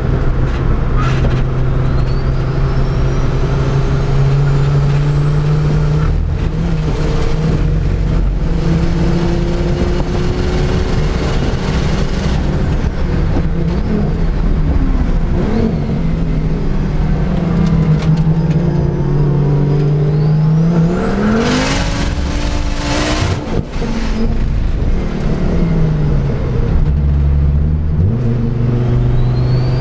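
Onboard sound of a Volvo 850R's turbocharged five-cylinder engine pulling on track, its pitch rising and falling with speed. About two-thirds of the way in the revs climb sharply. Near the end there is a gear change made without the clutch, because the car's clutch pump has failed.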